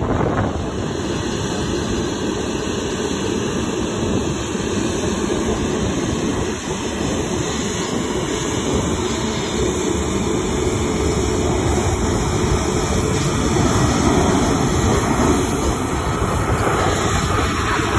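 Jet airliner engines running, a loud steady noise mixed with wind on the microphone, with a faint high whine that rises slightly in pitch through the middle.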